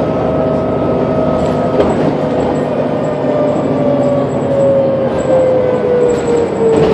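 City bus running with a strong drive whine: steady at first, then falling slowly in pitch from about two seconds in as the bus slows. A couple of short knocks sound over it, one near the end.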